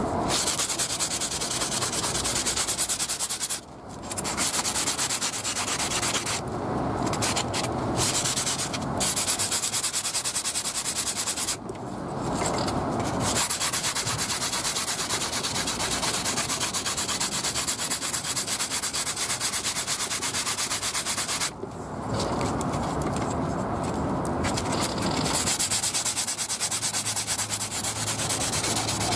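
Sanding block rubbed rapidly back and forth along the edge of a folding knife's handle scale: a fast, steady scrubbing with a few short pauses. It is rounding off the sharp edges of the milled grooves in the scale.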